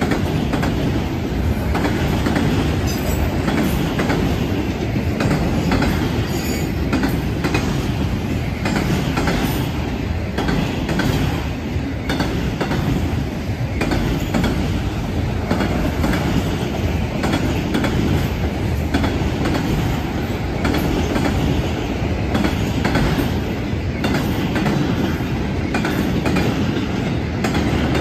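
Freight cars of a manifest train, autoracks then flatcars, rolling steadily past: a continuous rumble of steel wheels with a running series of clicks and clacks as the wheels cross rail joints.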